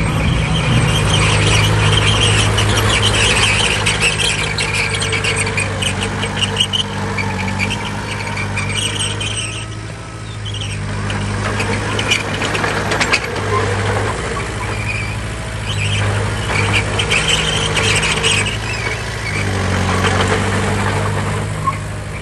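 Bulldozer's diesel engine running steadily, with a high squeal that comes and goes several times and scattered metallic clanks.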